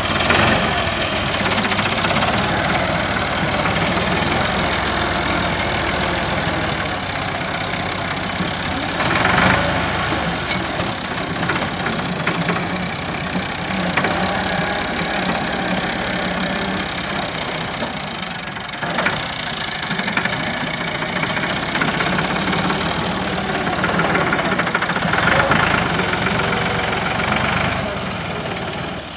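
Massey Ferguson 375 tractor's four-cylinder diesel engine running under load as the front loader digs and pushes soil, swelling louder a few times.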